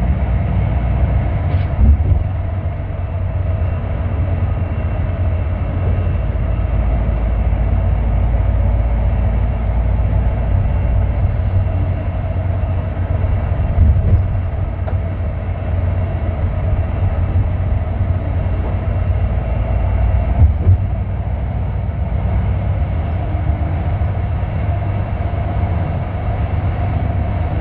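Steady low rumble of a moving road vehicle heard from inside its cabin, with a few short bumps.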